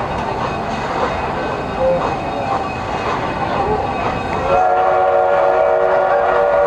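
Steady train noise, then about four and a half seconds in the Durango & Silverton narrow-gauge steam locomotive's whistle starts: a held chord of several tones that is still sounding at the end.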